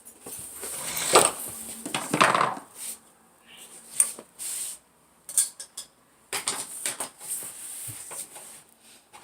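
Irregular metal clanks, scrapes and a few sharp knocks as a clothes dryer's parts and tools are handled during disassembly.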